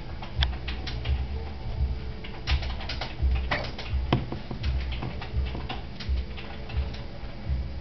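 Pet rats moving about in hay bedding: irregular small clicks, scratches and rustles, over a low uneven rumble.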